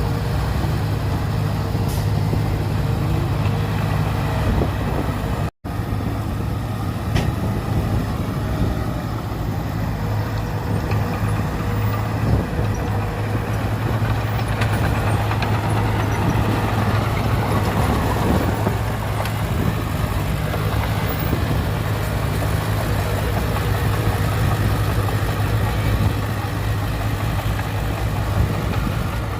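Heavy diesel engine running steadily with a deep low drone and a few faint clicks. The sound drops out for an instant about five and a half seconds in.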